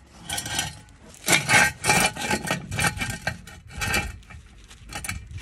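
Steel jack stand clanking on concrete as it is moved and set in place under the car: a series of metallic knocks with a short ring, the loudest a little over a second in and again about four seconds in.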